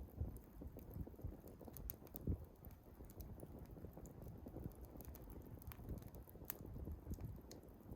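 Swedish torch log fire burning, with scattered crackles and sharp pops over a low rumble of the flames; one louder pop a little after two seconds in.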